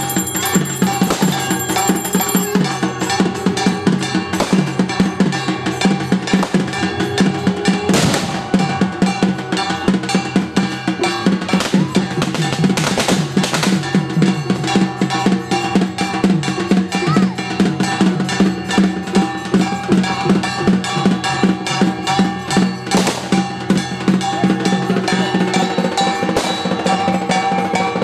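Music driven by loud, fast, dense drumming, with sustained pitched tones underneath.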